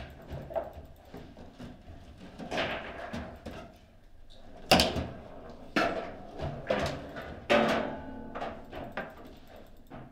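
Table football being played: irregular sharp clacks and knocks of the ball, the plastic figures and the rods, the loudest strike about halfway through.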